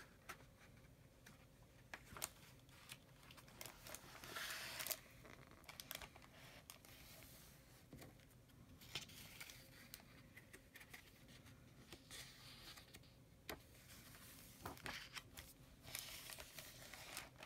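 Faint rustling and crinkling of a hardcover picture book's paper pages being handled and turned, about four seconds in and again near the end, with scattered light handling clicks in between.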